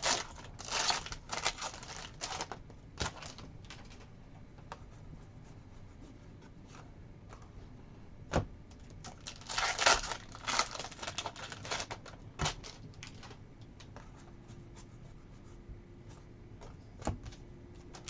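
Trading cards and foil card-pack wrappers being handled: bursts of rustling and crinkling with scattered sharp clicks, the busiest flurries near the start and about ten seconds in.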